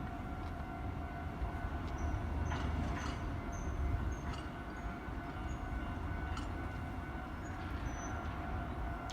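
Train running past a railway level crossing: a steady low rumble with a few scattered wheel clicks.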